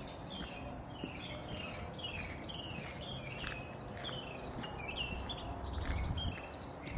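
Small birds chirping outdoors: a steady run of short, high calls that slide downward, several a second, over a low rumble that grows louder near the end.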